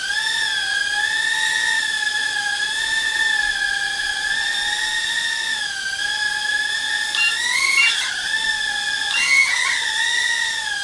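Aerix nano quadcopter flying: its tiny motors and propellers give a high, steady whine that wavers in pitch and rises briefly twice in the second half.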